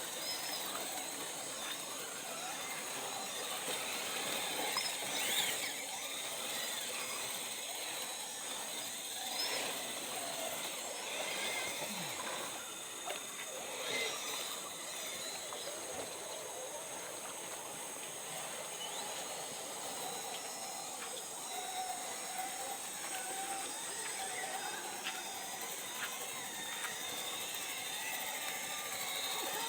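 Small electric motor of an RC rock crawler whining on and off over a steady high outdoor hiss.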